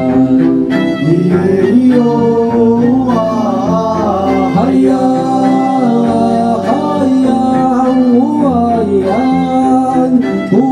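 Live acoustic song: a male voice singing a wavering melody over guitar and a string accompaniment of double bass, cello and violin.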